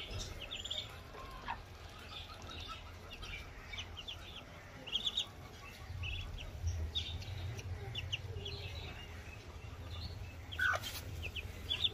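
Ducklings peeping: many short, high chirps scattered throughout, over a low steady rumble.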